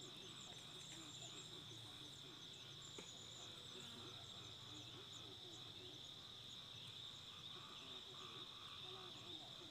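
Faint insect chorus, crickets or cicadas, making a steady high drone with many quick high chirps over it.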